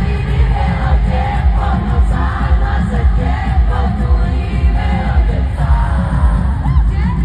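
Amplified live concert music through a stadium sound system: a heavy, steady bass beat with singing over it, and crowd noise underneath, as picked up by a phone in the audience.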